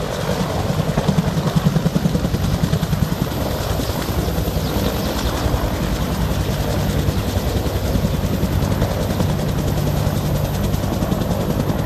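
Marine Corps Cobra attack helicopter flying, the fast, steady chop of its rotor blades carrying throughout, strongest in the first few seconds.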